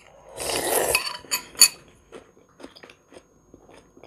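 Spoon shovelling salad out of a ceramic bowl tipped to the mouth: a loud rushing scrape lasting under a second, then two sharp clinks of the spoon on the bowl, followed by soft chewing.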